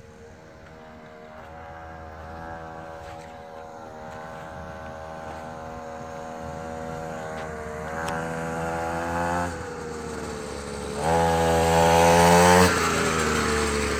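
Mini dirt bike's small engine running as the bike rides past, growing louder as it approaches. The throttle opens twice, about eight and eleven seconds in, and the second pull is the loudest.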